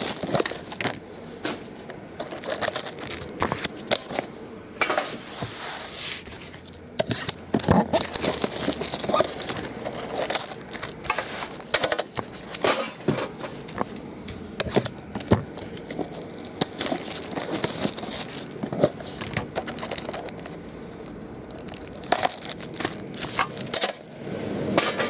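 Plastic shrink wrap and sealed trading-card packs crinkling and tearing as a card box is unwrapped and handled. Scattered sharp clicks and knocks run through it.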